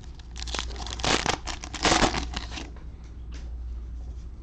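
Cellophane wrapper of a Panini Mosaic football cello pack being torn open and crinkled by hand. A run of crackly rustling lasts about two seconds and is loudest about two seconds in.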